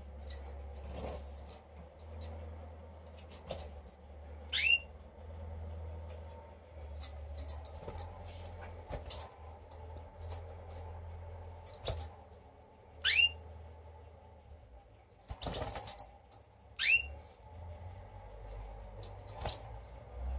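Domestic canaries moving about in wire breeding cages: light taps, rustles and wing flutters as they hop between perches and bars, with a fuller flurry of wings about three-quarters of the way through. Three short, high calls that fall steeply in pitch stand out, the loudest sounds.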